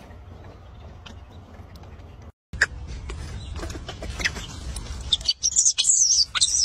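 Young macaque squealing in shrill, wavering cries over the last second or so. Before that come scattered rustling and clicking sounds.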